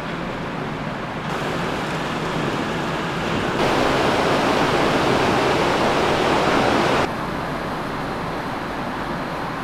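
Steady rushing noise over a low hum from the open deck of a car ferry, the ship's machinery mixed with wind. It steps up in level a little past a second in, is loudest from about three and a half to seven seconds, then drops back.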